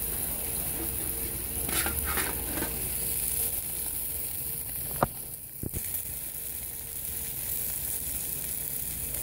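Beef hamburger patties sizzling steadily over hot charcoal on a grill grate, cooked nearly through, with a sharp click about five seconds in.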